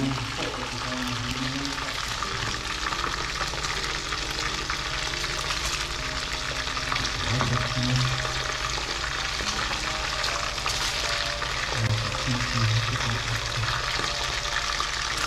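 Curry fish frying in a pot, giving a steady crackling sizzle.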